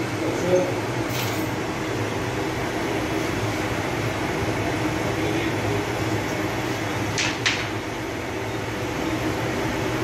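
Steady mechanical hum of bakery equipment, with a few sharp knocks, two of them close together about seven seconds in, as a long wooden peel works at the mouth of a stone Sangak oven.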